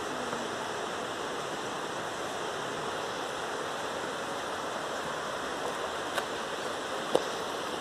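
Steady, even rushing of river water flowing below the bridge, with a light knock about seven seconds in.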